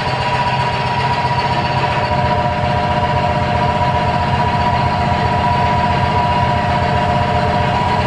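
Milking vacuum pump running steadily for a bucket milker, with a rapid, even low pulsing and a steady whine.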